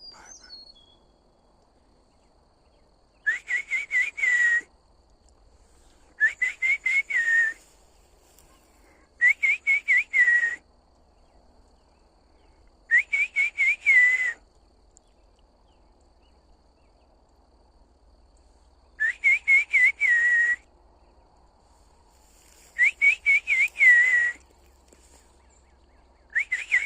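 A songbird singing: a phrase of about five quick, whistled, slurred notes repeated every three to four seconds, with a longer pause in the middle.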